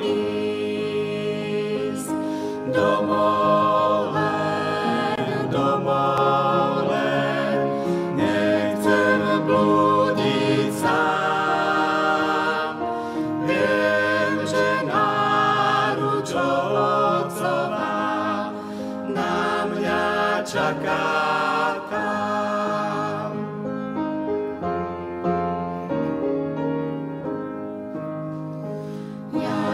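Mixed vocal quartet, two men and two women, singing a slow hymn in harmony with upright piano accompaniment. About 23 seconds in the voices stop and the piano plays a short interlude alone before the singing resumes at the very end.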